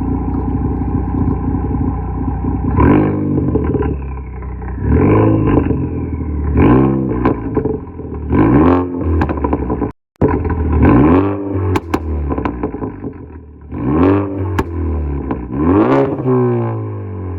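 2013 Ford Focus ST's turbocharged 2.0-litre four-cylinder through a straight-through exhaust with a catless downpipe, idling and then revved in about seven quick blips. Each blip rises and falls back to idle. Sharp pops and crackles come on the overrun, from a tune with programmed crackles.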